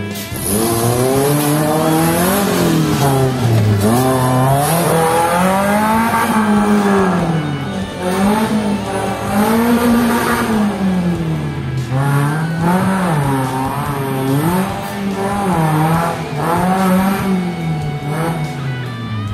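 Tubular off-road buggy's engine revving hard, its pitch climbing and dropping again every second or two as the driver accelerates and backs off.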